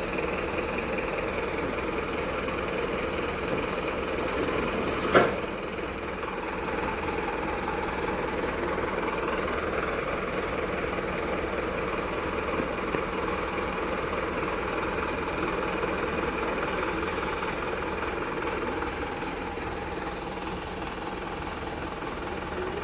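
Truck engine running steadily, with one sharp knock about five seconds in and a brief faint hiss later on.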